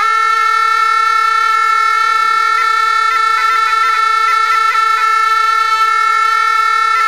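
Two gyalings, Tibetan double-reed shawms, played together in the Drikung Kagyu style. They hold one long, steady reedy note, and from about two and a half seconds in, quick ornamental grace notes flicker over it.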